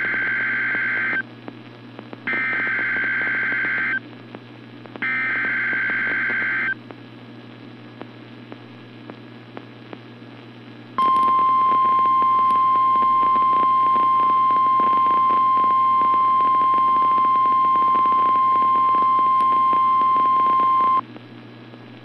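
Emergency Alert System signal from NOAA Weather Radio: three short bursts of screeching SAME digital header data, then after a pause of a few seconds a steady single-pitch warning alarm tone held for about ten seconds. Together they mark the start of a weather alert broadcast. A constant radio hiss and hum lies underneath.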